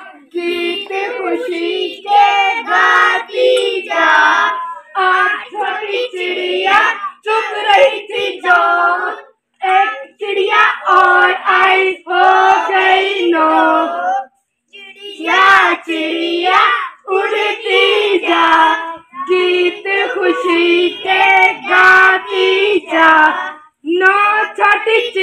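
A group of children singing an action song together, line by line, with short breaks between phrases.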